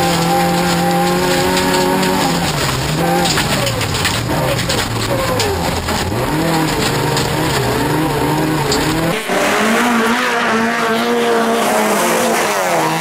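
Race-prepared Toyota Corolla rallycross car's engine heard from inside the cabin, held at steady revs for about two seconds, then rising and falling through gear changes as the car races over loose dirt. About nine seconds in, the sound cuts to racing engines heard from beside the track.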